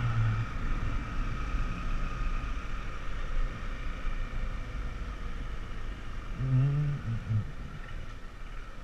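Motorcycle running along a street, with wind rushing over the microphone. A short pitched sound that wavers in pitch cuts in over it about six and a half seconds in, lasting under a second.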